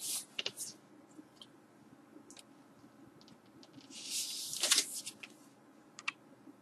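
Cardboard LP record jacket being handled and turned over: faint rustling and brushing, with a louder rustle about four seconds in as it is flipped, and a few small clicks near the end.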